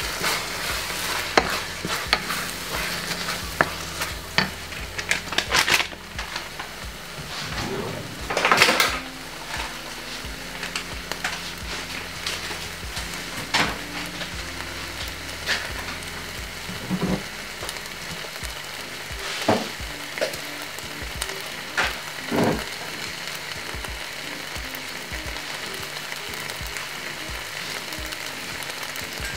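Chilli con carne mince and beans in tomato sauce sizzling in a stainless steel pan, with a wooden spoon stirring, scraping and knocking against the pan. The knocks come often in the first half, then only now and then over the steady sizzle.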